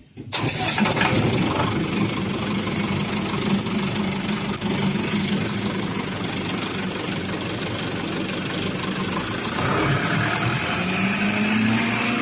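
Concrete pump's engine starting about a third of a second in, then running loud and steady on a trial run, its pitch rising slightly near the end.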